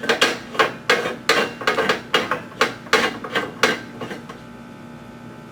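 Calibration gas bottle, regulator and strap being handled in a gas-monitor docking station: a quick series of about a dozen sharp clicks and knocks over four seconds, then they stop.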